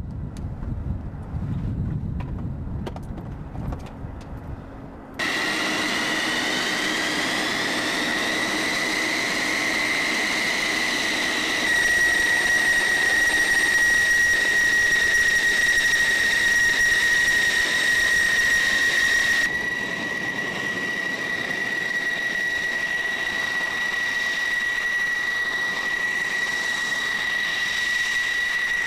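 An F-16's jet engine whining at a steady high pitch, which rises slightly at first and then holds. For the first five seconds there is only a low rumble, and then the whine comes in suddenly. Its loudness shifts abruptly twice more.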